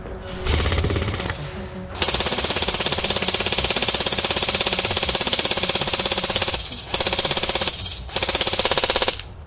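Classic Army DT4 double-barrel, dual-piston electric airsoft rifle firing on full auto: a long rapid burst of about four and a half seconds, then two shorter bursts after brief pauses.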